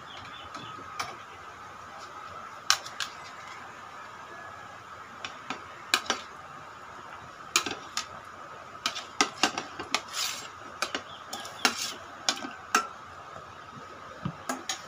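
A metal spoon clinking and scraping against a plate and the rim of an aluminium pot as fish is pushed off the plate into the pot: scattered sharp clinks, coming thick and fast in the second half, over a faint steady hum.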